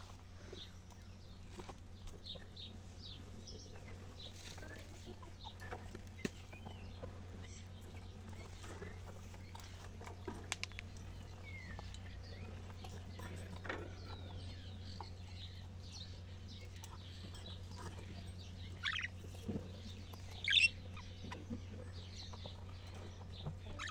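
Budgerigars chirping and chattering in short, scattered calls, with louder squawks a little before the end, over a steady low hum.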